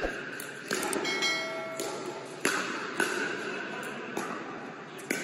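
Pickleball rally: paddles striking the plastic ball about six times, each a sharp pock echoing in a large indoor hall. A short bell-like ding sounds about a second in.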